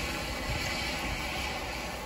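Steady hiss of rain and tyres on a wet freeway, with a low road rumble beneath, heard from inside a moving car.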